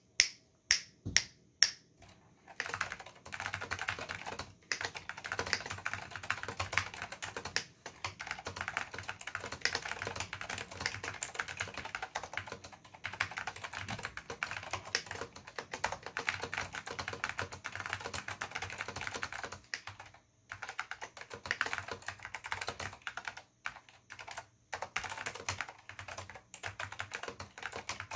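Three finger snaps in the first two seconds, then fast, continuous typing on a 1989 Apple Extended Keyboard II with Alps SKCM Salmon switches and Apple Alps keycaps, with a few brief pauses.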